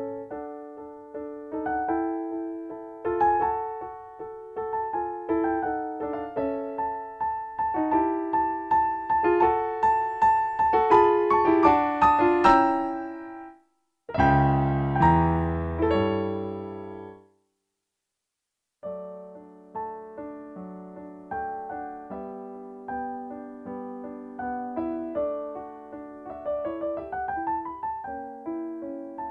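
Solo piano music. Runs of notes build up to a loud passage, a low chord is struck and dies away into a pause of about a second and a half, and the playing resumes more softly.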